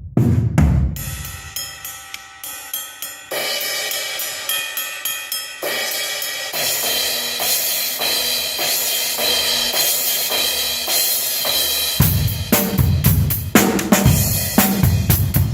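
Drum kit sound check on Istanbul Mehmet cymbals and a Carrera kit: a couple of low drum hits, then cymbals struck over and over and left ringing, building into a sustained cymbal wash. About twelve seconds in, bass drum and snare hits come back in a steady groove under the cymbals.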